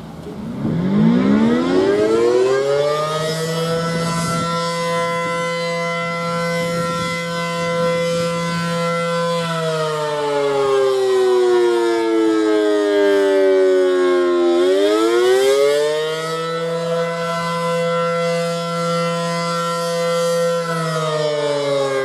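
ACA Allertor 125 rotating outdoor warning siren winding up from silence. Its pitch rises to a held tone, falls away, climbs again to the held tone and then falls once more: the rising-and-falling wail of the Attack signal.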